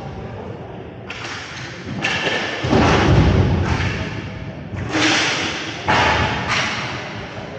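Inline roller hockey play: several sharp thuds and knocks of sticks, puck and players against the rink boards and floor, each one echoing off in the arena.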